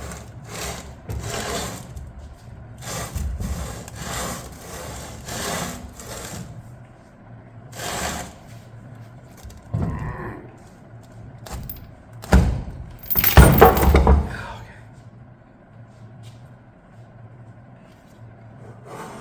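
A heavy Allison automatic transmission being manhandled and rolled onto its side: a run of scuffs, shuffles and scrapes, then a loud metal clunk and scrape about twelve to fourteen seconds in as the case comes down. A steady low hum runs underneath.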